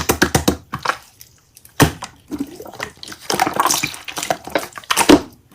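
Slime being squished and pressed by hand, giving wet clicking and popping sounds: a quick run of clicks at the start, one sharp pop a little under two seconds in, then crackly squelching near the end.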